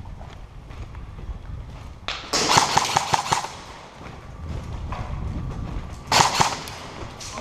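Airsoft gunfire in two bursts of rapid shots, a longer one about two seconds in and a shorter one about six seconds in, with footsteps and gear movement between them.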